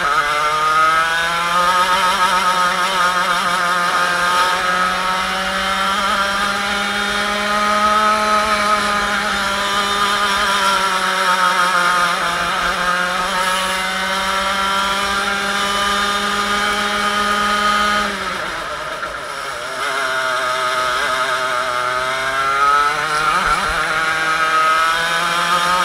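Two-stroke racing kart engine at full race pace, revs climbing along the straights and falling through the corners. About eighteen seconds in the revs drop sharply as the throttle is lifted, then climb again.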